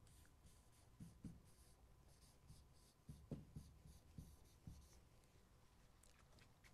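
Faint scratching of a pen writing on a wall-mounted whiteboard, in short strokes with soft taps as the pen meets the board, easing off after about five seconds.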